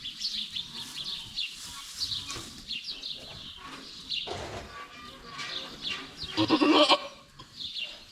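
A doe goat in labor bleats, with one loud call about six and a half seconds in, while small birds chirp throughout.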